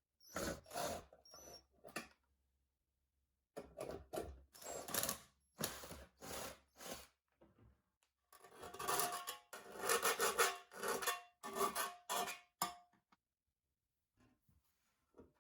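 Thin stainless steel sheet being worked by hand with a metal tool: short scraping, rasping strokes in three runs separated by pauses, with a faint metallic ring.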